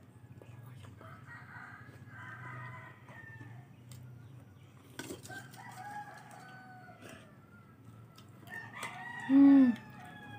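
Roosters crowing faintly, a few long, held crows one after another. Near the end, a person makes a short, loud 'mmm' hum that rises and falls in pitch.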